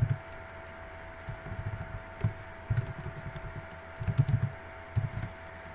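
Computer keyboard being typed on in short bursts of a few keystrokes each, with pauses between them.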